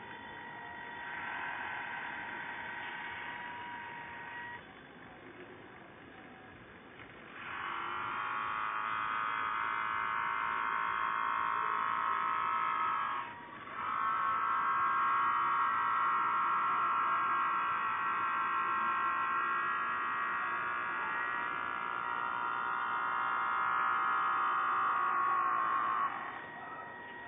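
Small electric motor of an RC barge model running with a steady buzzing whine. It starts about seven seconds in, cuts out for a moment about halfway through, and stops shortly before the end. Before it starts there is a fainter steady hum.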